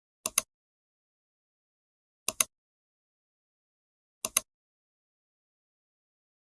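Computer mouse clicks: three short double clicks about two seconds apart, with dead silence between.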